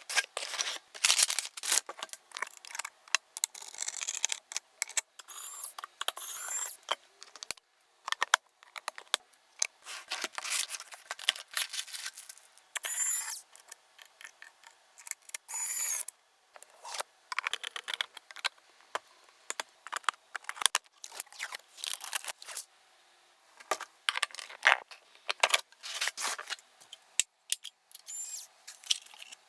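Computer parts being unboxed and fitted by hand: irregular clicks, scrapes and rustling of packaging and hardware, with a few short high squeaks.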